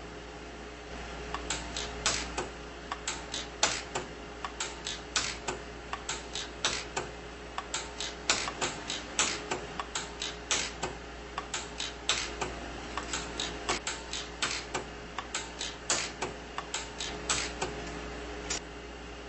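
Orion 150s pulse arc welder firing a rapid series of weld pulses, each a sharp snap, about one or two a second, as sterling silver fill wire is built up on a titanium eyeglass frame. The snaps start about a second and a half in and stop near the end, over a steady low hum.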